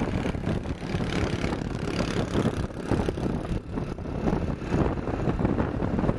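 Wind buffeting the microphone and road noise from a motorbike riding along at speed.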